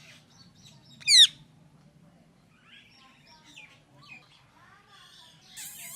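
Parrot giving one loud, short, shrill call about a second in, followed by quieter chirps and squawks.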